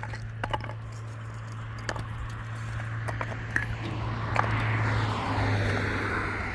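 A motor running steadily with a low hum, and a swell of noise about four to six seconds in, with scattered clicks and knocks.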